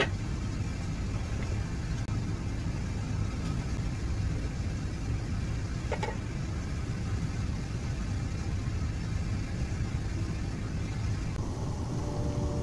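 Steady low hum of laboratory air handling: room ventilation and a running biosafety cabinet fan. A single light clink comes about six seconds in.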